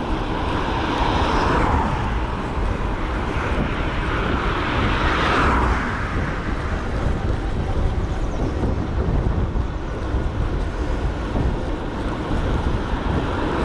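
Wind rushing over an action camera's microphone on a moving bike, with road traffic passing close by: one vehicle swells past about a second in and another around five seconds in.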